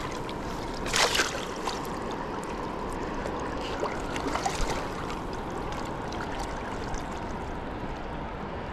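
Steady rush of a fast river running high with snowmelt, with a short splash about a second in and a few smaller splashes around four to five seconds in.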